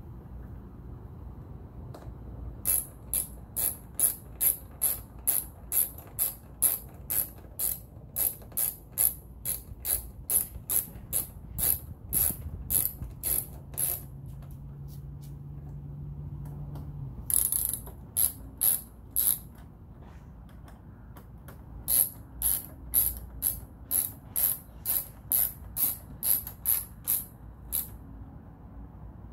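Hand ratchet clicking in three runs of quick, even strokes, about three clicks a second, with short pauses between runs: fasteners being driven home during the fitting of the nav lock.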